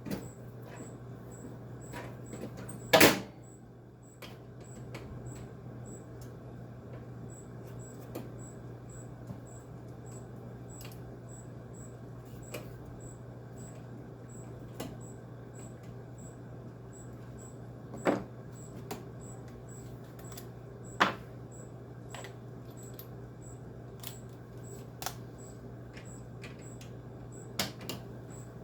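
Scattered knocks and clicks of hand and tool work on a window air conditioner, the loudest about three seconds in, over a steady low hum.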